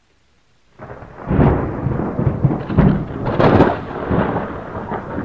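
Thunder: a heavy rumbling roll with several sharp cracks, starting about a second in.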